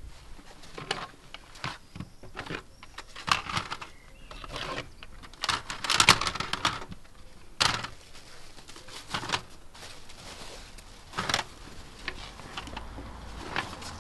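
Irregular rustling, clicks and knocks of a black bag and wrapped packets being handled on a table. The loudest bout of rustling comes a little after the middle, with single sharp knocks shortly after it and again near the end.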